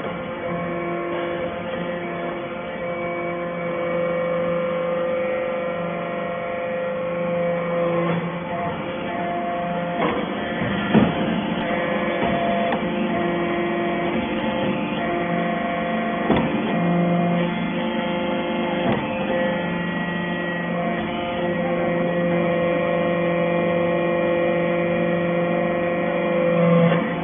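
Hydraulic metal-chip baling press running: a steady machine hum that swells and eases in stretches of a few seconds, with a couple of sharp knocks partway through.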